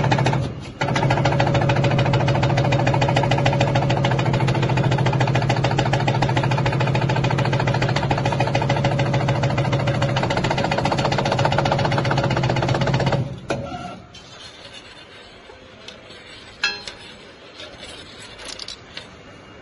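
CNC bending machine running a test bend on stainless steel strip: a loud, steady mechanical hum with a fast, even clatter. It breaks off briefly near the start and stops about 13 seconds in, followed by a few light clicks.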